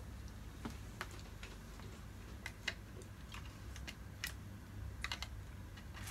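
Faint light clicks and small knocks, a dozen or so at uneven intervals, from a ring light's power plug and cable being handled and plugged in.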